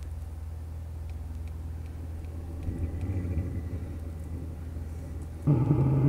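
Vevor 5 kW 12-volt diesel air heater's exhaust running through its start sequence: a low steady rumble that swells about three seconds in, then turns suddenly louder with a deep hum about five and a half seconds in as the heater ramps up.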